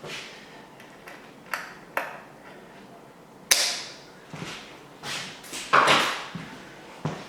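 Irregular sharp clicks, taps and short metallic pings of hand work on a bicycle's rear derailleur and gear cable, several in a few seconds, the loudest about three and a half and six seconds in.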